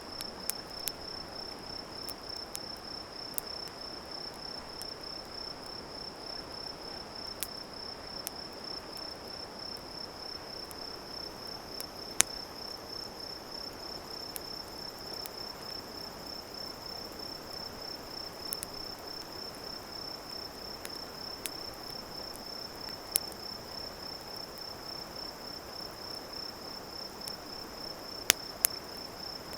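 An insect trilling steadily at one high pitch, with sharp crackles and pops from a wood campfire every few seconds, the loudest about twelve seconds in and twice near the end.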